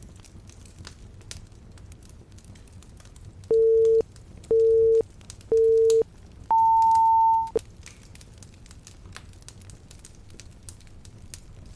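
Electronic timer end signal: three short beeps a second apart, then one longer beep an octave higher. Faint fireplace crackling runs underneath.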